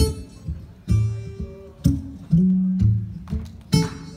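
Acoustic guitar playing a blues accompaniment between sung lines: picked bass notes and chords, each struck sharply and left to ring, about every half-second to second.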